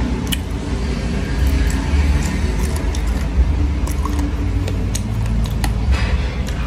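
A steady low rumble, with scattered small clicks as fingers tear apart a grilled chicken leg and pick up papaya salad.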